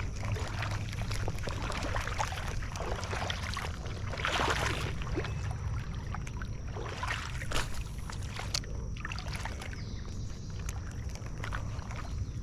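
Water sloshing and splashing close to the microphone over a steady low rumble, loudest about four and a half seconds in, with a sharp tick later on.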